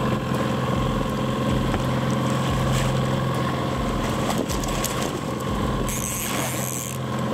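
A fishing boat's motor runs steadily at trolling speed. A hooked coho salmon splashes at the surface as it is netted beside the hull, with a burst of splashing about six seconds in.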